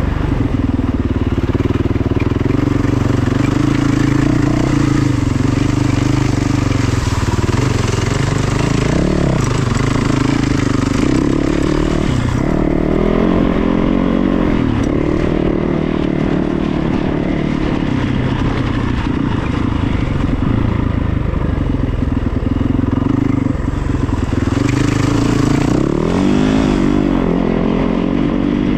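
An engine running steadily, its pitch wavering up and down a few times.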